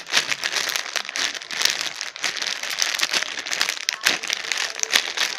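Plastic packaging of a squishy toy crinkling and crackling as it is handled and opened.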